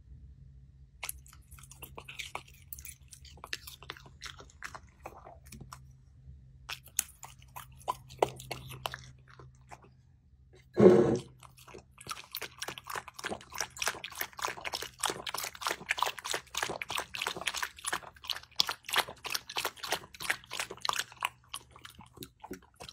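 A dog lapping broth from a bowl: dense, rapid wet licking clicks through the second half. Before it come scattered small clicks and chewing sounds, and one short loud thump just before the lapping starts.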